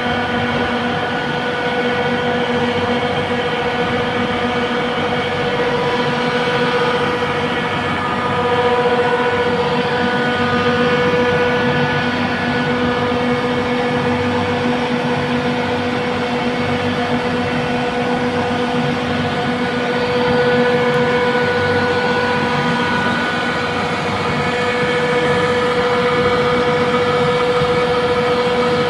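Trane chiller compressor running: a steady, loud hum with a strong mid-pitched tone and several higher tones over a constant rushing noise.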